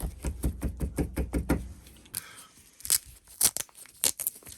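Metal hand tools and a small steel workpiece being handled after threading: a quick, even run of small clicks and knocks, about seven a second, for a second and a half, then a few separate sharp metal clicks.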